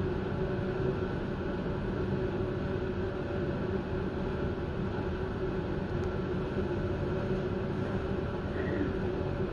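Electric passenger train humming steadily as it stands still: a low rumble with a few steady tones from its onboard equipment.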